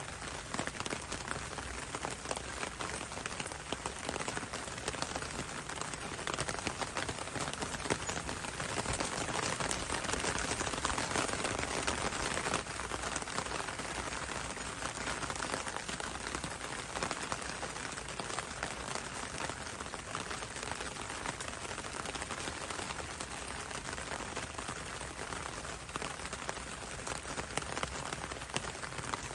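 Steady rain falling on leaves: a dense, even patter of raindrops, swelling slightly midway.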